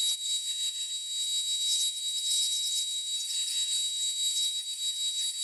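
Power saw running steadily: a high-pitched whine with a crackly edge.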